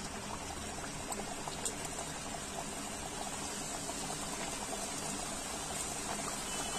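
Chicken kachoris deep-frying in oil in a wok on medium flame: a steady bubbling sizzle scattered with small crackles.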